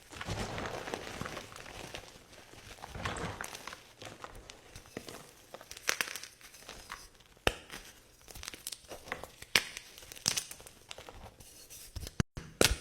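Blocks of gym chalk being crushed: grainy crumbling crunches in two longer stretches in the first few seconds, then separate sharp cracks.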